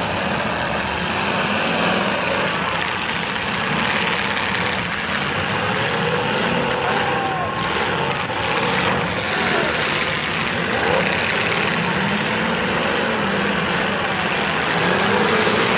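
Engines of several old full-size demolition derby cars running and revving as they push and ram one another, with a couple of sharp collisions about halfway through. A crowd shouting and cheering underneath.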